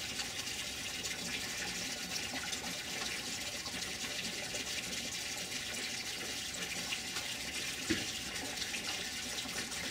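Steady rushing background noise, even and unbroken, with one brief faint rising sound about eight seconds in.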